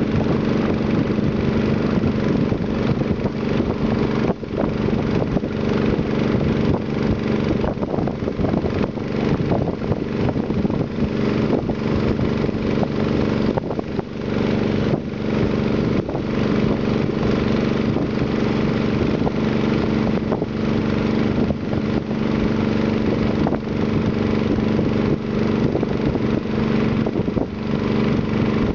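Small river boat's engine running steadily at one even speed, a constant droning hum with no change in pitch.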